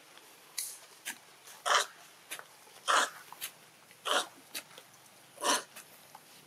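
Hoe blade chopping and scraping into loose soil in steady strokes, about one every second and a quarter, with soft clicks of dirt falling between them.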